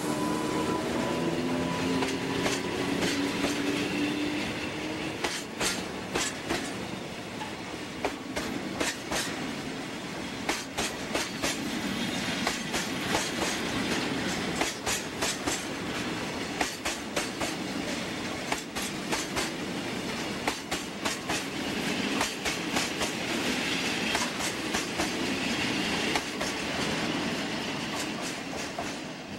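Freight train of railway tank wagons rolling past close by, the wheels clacking over rail joints in irregular clusters of clicks. In the first few seconds a humming, steady-toned locomotive sound fades away as it moves off.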